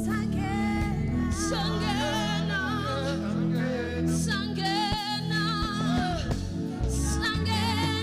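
Live gospel worship singing: several voices with vibrato, male and female, over held instrumental chords that change every second or so.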